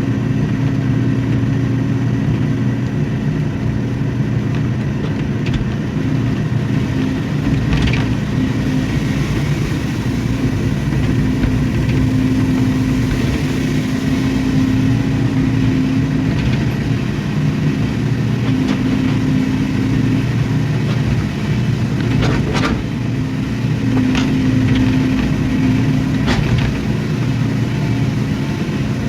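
Hydraulic excavator's diesel engine running steadily under working load, its note swelling and easing as the hydraulics work, with a few sharp knocks of the bucket or arm.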